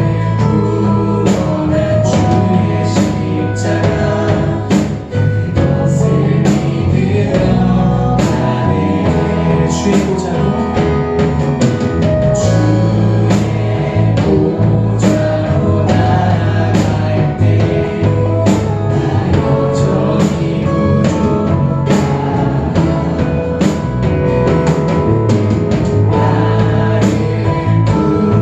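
Live worship band playing a contemporary Christian praise song: a steady drum-kit beat, bass and guitar, with singing.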